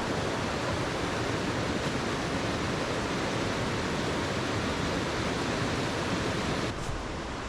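Steady rush of a rocky mountain creek flowing close by. A little under seven seconds in it turns slightly quieter and duller.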